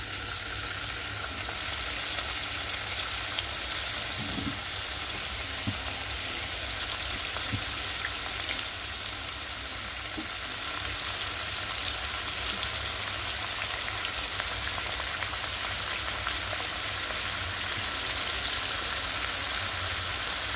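Salt-marinated chicken pieces frying in hot oil in a kadai: a steady sizzle that swells over the first couple of seconds as the chicken goes in, then holds, with a few faint clicks.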